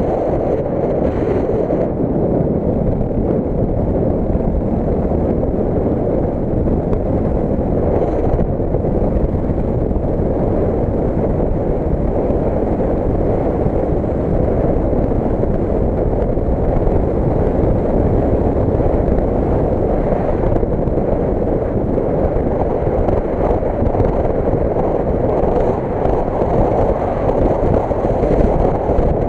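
Steady rush of wind on the microphone mixed with the running noise of a moving motor scooter, heard from the pillion seat.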